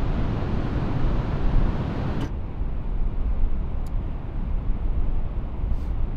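Wind buffeting the microphone: a steady low rumble, with a brighter hiss over it that cuts off abruptly a little over two seconds in.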